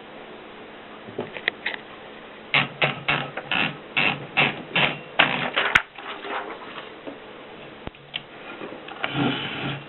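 Antique Mercedes Prima manual typewriter being typed on. There are a few clicks, then a run of sharp key strikes at about three a second that ends in one especially sharp click, followed by lighter clicks and a longer mechanical rattle near the end.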